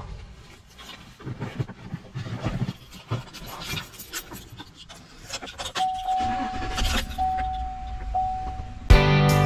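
Rustling and clunks as someone climbs into a Chevrolet pickup's cab and settles in, then a steady electronic warning tone from the truck, repeating about once a second for three seconds. Guitar music cuts in near the end.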